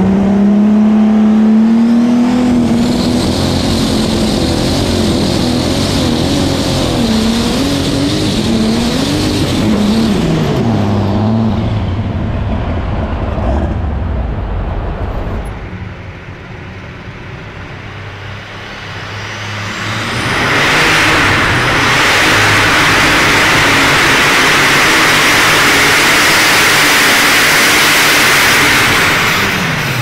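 Alcohol-burning Light Super Stock pulling tractor engine running wide open under load, with a high turbo whistle over it; its pitch wavers, then drops off about ten seconds in as the pull ends. After a quieter stretch, another super stock tractor's engine spools up with a rising whine about twenty seconds in and runs at full throttle, loud and steady, until near the end.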